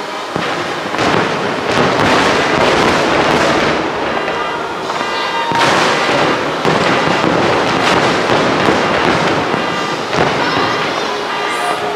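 Fireworks bursting and crackling in a dense, continuous barrage, with new volleys surging in several times.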